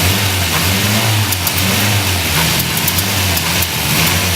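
Car engine fitted with a Garrett GT4088R turbocharger being revved, its note rising and falling several times, under a strong steady hiss. The owner finds a noise from the turbo strange.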